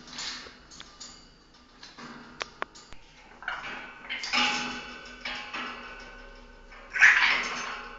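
Pet parrot making sounds: a couple of sharp clicks, then several harsh, noisy bursts, the loudest about seven seconds in.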